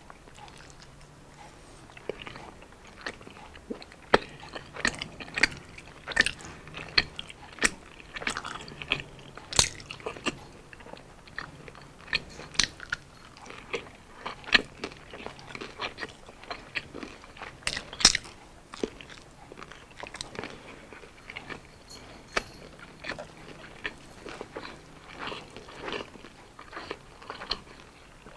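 Close-up chewing of crispy battered, deep-fried street food, with frequent sharp crunches at an uneven pace, the loudest about four seconds in and again past the middle.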